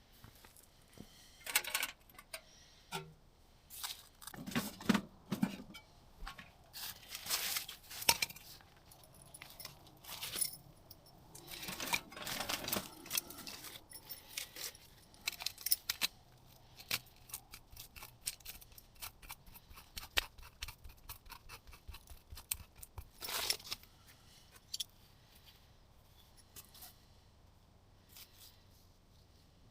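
Rustling and a run of sharp snaps and clicks as kindling is broken and handled, busiest over the first twenty-odd seconds, then thinning to scattered faint ticks.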